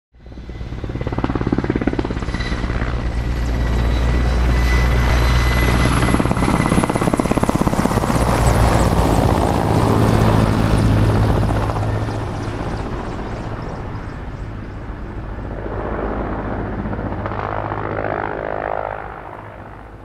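Mil Mi-17 helicopter passing low overhead: the rapid beat of its main rotor under the high whine of its twin Klimov turboshaft engines, the whine sinking slightly in pitch. It builds quickly, is loudest through the middle and then fades as the helicopter moves away, with a brief swell and a drop near the end.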